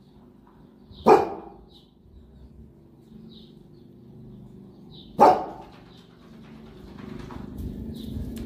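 Boerboel dog barking: two loud single barks about four seconds apart, then a low steady rumbling that builds near the end.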